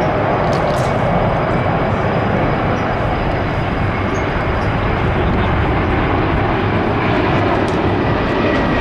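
Jet airliner engines, an Airbus A350 XWB in its display, giving steady loud jet noise with a faint high whine that drops a little in pitch near the end.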